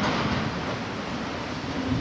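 A train running past, a steady rumble and rush of noise with a faint hum in it.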